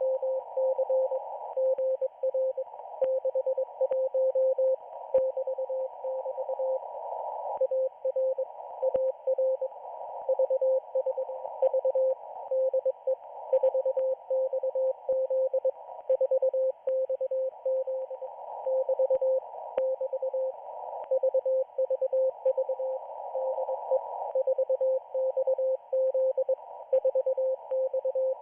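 Morse code from the Israeli Navy radio station 4XZ heard on a shortwave receiver in the 40-metre band: a single steady tone keyed on and off in dots and dashes at telegraph speed. It sits over a bed of band noise heard through a narrow receive filter, with a few faint static clicks.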